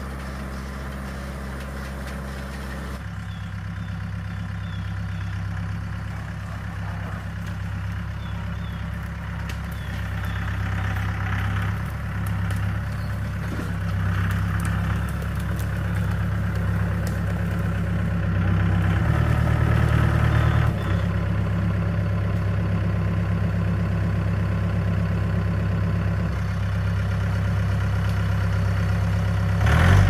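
Mahindra compact tractor's diesel engine running steadily as the tractor drives with a load on its front loader. The engine grows steadily louder as it comes closer, with a brief change in its note about twenty seconds in; faint bird chirps sound now and then.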